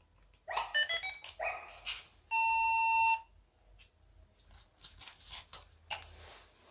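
Startup beeps from the XK Edge A-430's brushless motor electronics as the lipo battery is plugged in: a quick rising run of short beeps, then one long steady beep about a second long, signalling that the plane has powered up. Faint handling clicks follow.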